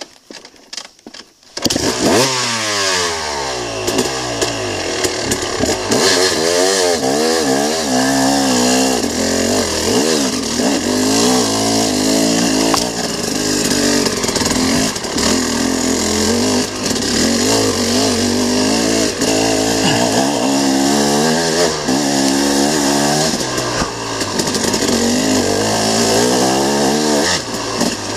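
Dirt bike engine being ridden hard, its pitch rising and falling over and over with throttle and gear changes. The engine comes in abruptly and loud about two seconds in, after a few quieter knocks.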